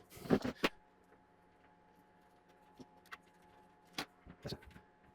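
Light clicks and knocks of small parts being handled: two close together at the start, then a few scattered ones and a short cluster near the end.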